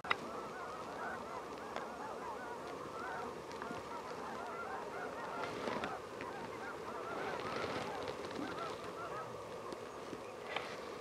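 A large flock of snow geese calling on the water: a continuous chorus of many overlapping high, nasal honks. A single sharp tap sounds right at the start.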